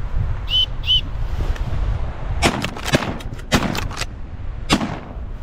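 Shotguns firing at ducks over a marsh: about six sharp blasts in quick, uneven succession starting a little over two seconds in. Two short high whistled notes sound about half a second and a second in.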